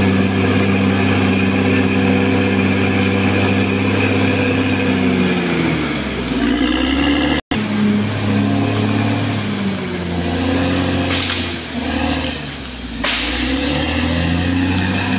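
Caterpillar D6R XL bulldozer's diesel engine running hard and steady. About halfway through, the engine speed sags, the sound cuts out for an instant, and then the engine note rises and falls as the load changes.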